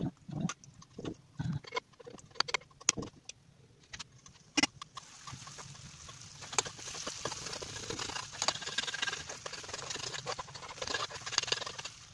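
A metal spoon clinking and scraping in a frying pan while stirring a bean and corn mixture, with a steady sizzle of the cooking mixture setting in about five seconds in, spoon taps continuing through it.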